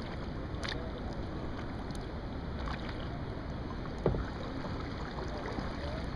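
Water lapping and splashing at a kayak's hull as it is paddled, over a steady low rumble, with a sharp knock about four seconds in.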